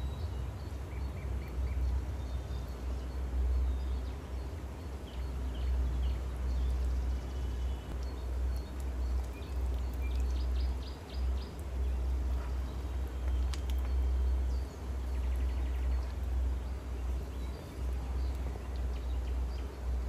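Background ambience: a steady low rumble with faint, scattered bird chirps.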